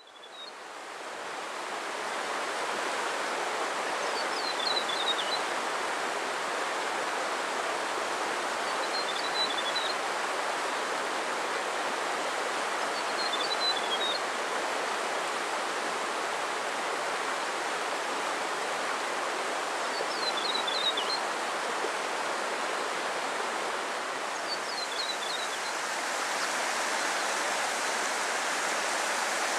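Steady rush of a fast, rocky mountain stream, fading in over the first two seconds. A small bird's short, high chirping phrases break through it five times.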